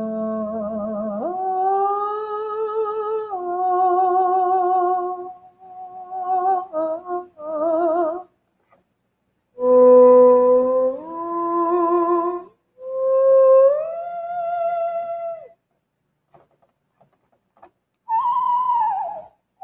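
D-Lev FPGA-based digital theremin played in short phrases. It holds wavering notes and slides smoothly up or down from one note to the next, with short pauses between phrases.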